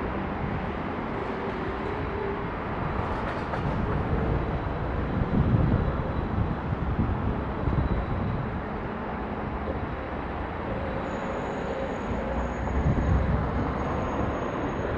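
Outdoor street ambience: a steady rumble of road traffic, swelling as vehicles pass about five and a half and thirteen seconds in.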